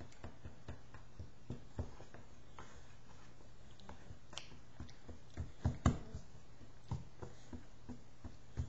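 Scattered light taps and clicks, with a few louder ones about five and a half to six seconds in, over a faint steady hum.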